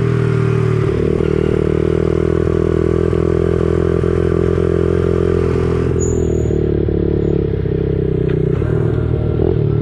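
Dirt bike engine running at a steady pitch, with a high rushing hiss over it that drops away about six seconds in. A few light rattles come near the end.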